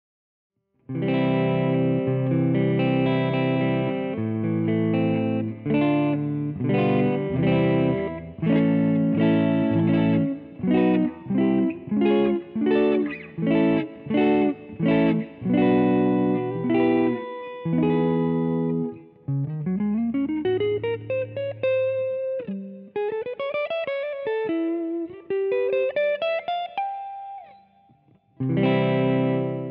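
Epiphone Les Paul Custom electric guitar played through an amplifier's clean channel, starting about a second in. Rhythmic chords and picked chord figures come first. About two-thirds through the player switches to single-note lines with upward slides, and strikes a full chord again near the end.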